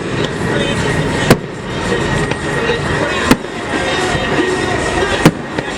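Fireworks exploding: three sharp bangs about two seconds apart, over a steady background of crowd voices and music.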